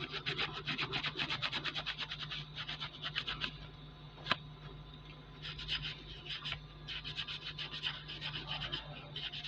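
Scouring pad scrubbed quickly back and forth over a diecast metal toy car body, in runs of fast strokes broken by short pauses. A single sharp click about four seconds in.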